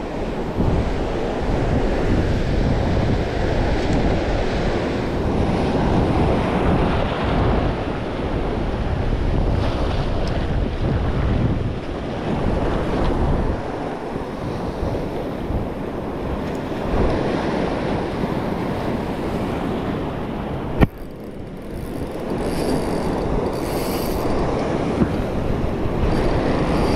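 Surf washing and breaking over a rocky shoreline, with wind buffeting the microphone. A single sharp click sounds about two-thirds of the way through.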